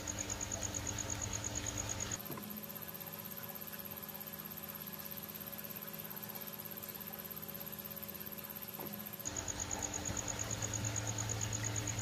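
Small submersible pond pump running with a steady electrical hum, over a faint rush of water churning from its outlet pipes. The sound drops quieter about two seconds in and comes back about nine seconds in.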